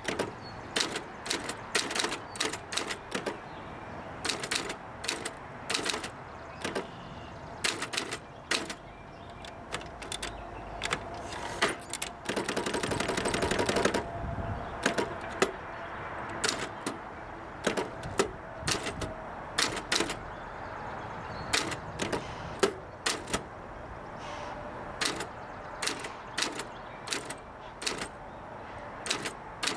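1956 Olympia SG1 manual typewriter being typed on: irregular sharp key strikes hitting the platen, with a dense, rapid clatter lasting about two seconds near the middle.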